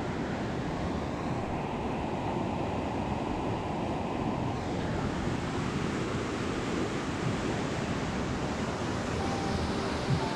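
Mountain river rushing through a narrow rock gorge: a steady, unbroken noise of fast-flowing water.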